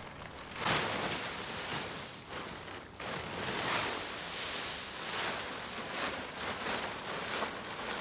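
Dry fallen leaves rustling as they slide and tumble out of a lifted green poly tarp onto a leaf pile, with the tarp's plastic crinkling. The rustling comes in surges: it starts about a second in, dips briefly near the three-second mark, then returns in repeated waves.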